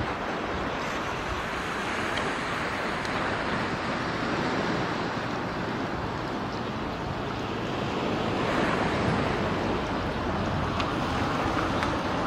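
Steady wash of sea surf, with wind buffeting the microphone.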